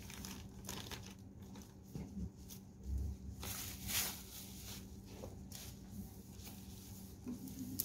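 Hand mixing crumbly tapioca-and-flour dough in a plastic bowl: soft rustling and scraping strokes, with a couple of dull knocks about three and four seconds in, over a faint steady hum.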